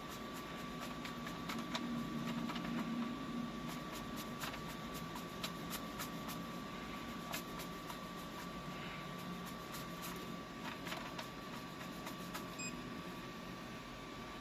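Light, scattered clicks and taps of small parts being handled and fitted while a 3D printer bed's leveling knobs and springs go on, over a steady low hum with a thin constant whine.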